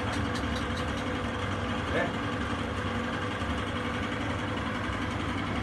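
Steady background hum with indistinct, muffled voices, and a brief raised voice about two seconds in.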